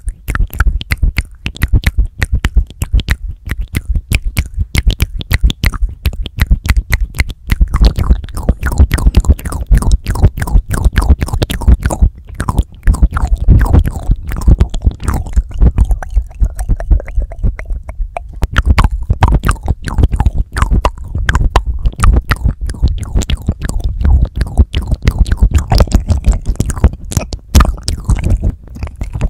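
Wet mouth sounds made right on a handheld recorder's microphones: rapid lip smacks, tongue clicks and licking of the mic, a dense patter of sharp clicks with heavy low thumps where the lips touch the capsules.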